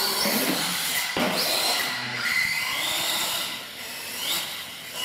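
Electric motors of an R/C monster truck whining, rising in pitch with each burst of throttle, several times over. There is a sharp knock about a second in.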